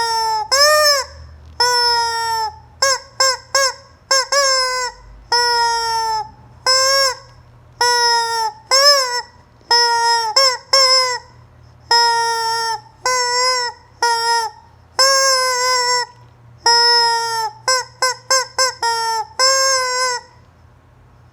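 Rubber squeeze-toy chicken squawking over and over as it is squeezed, about thirty honking squeals, some held for about a second and some short ones in quick runs.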